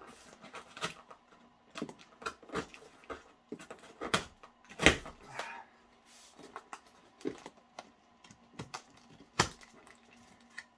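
Cardboard shipping box being opened: irregular clicks, crackles and rustles of packing tape being cut and pulled and cardboard flaps being handled, with a few sharper knocks, the loudest about five seconds in and again near the end.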